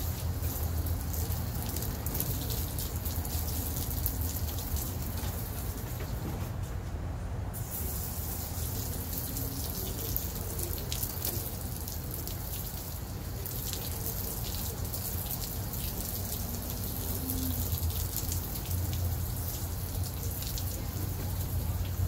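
Garden hose spraying water onto a wooden deck: a steady hiss and spatter that drops out briefly about seven seconds in. A steady low hum runs underneath.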